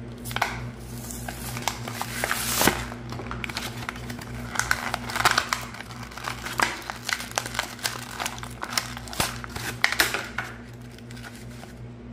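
Cardboard blister card of a diecast toy car being torn open by hand, the plastic blister crinkling and crackling in irregular bursts, loudest about two and a half seconds in.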